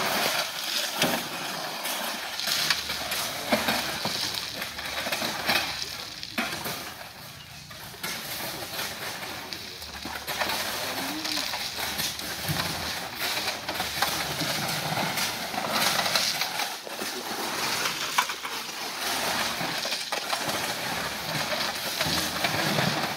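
Crushed stone being raked and shovelled off a truck bed with a hoe: repeated scraping and clattering of gravel, with sharp knocks of stones and tool on the steel bed.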